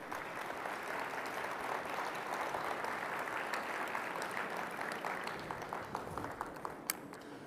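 Audience applauding, dying away into a few scattered claps near the end, with a single sharp tap just before it ends.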